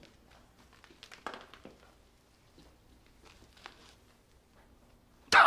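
Near-quiet pause with only faint rustles and small clicks. About five seconds in, a man starts laughing loudly.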